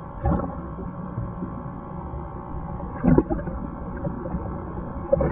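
Muffled water sloshing and gurgling around a submerged camera, as a low rumble with two louder swells of churning water, about a quarter second in and about three seconds in.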